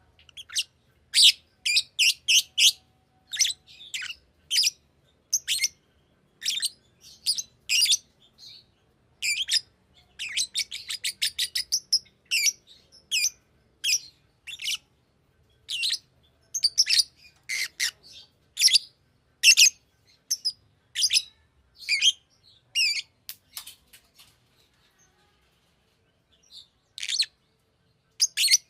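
Fisher's lovebird calling with a long series of short, sharp, high chirps, some in quick rapid runs, then falling quiet for a few seconds near the end before one more chirp.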